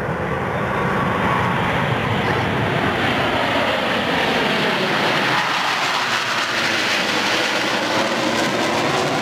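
Jet roar of four Blue Angels F/A-18 Hornets flying over in diamond formation. It grows louder over the first second or two, then holds steady, its tone sweeping down about halfway through as the jets pass overhead.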